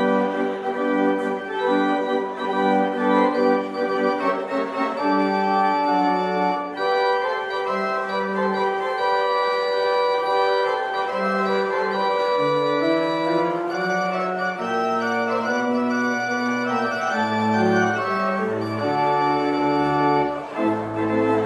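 Church organ playing slow held chords, with a bass line stepping through lower notes in the second half.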